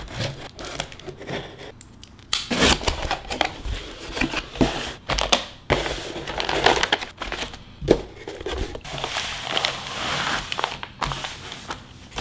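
A cardboard box being unpacked: a knife slitting the packing tape, then flaps pulled open and paper wrapping and plastic packaging rustling and crinkling, with a few sharp knocks against the table.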